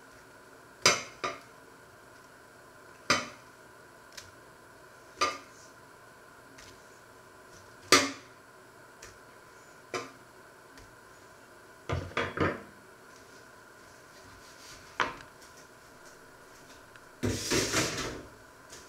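Metal kitchen tongs clinking against a metal baking tray and a china plate as potato croquettes are lifted off one at a time: a sharp clink every two seconds or so, with a longer clatter near the end.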